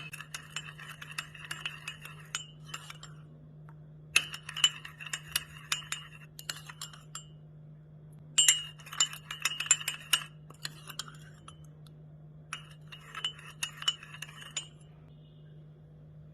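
A metal spoon clinking rapidly against a glass in four bouts of stirring, each about two seconds long, with a steady low hum underneath.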